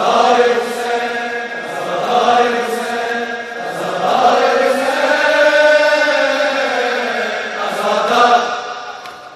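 Male voices chanting a nauha, a Shia mourning elegy for Imam Hussain, in long held, wavering notes, with sharp rhythmic strikes about once a second from matam chest-beating.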